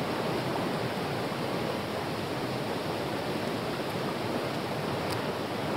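Small mountain stream running over rocks: a steady, even rush of water.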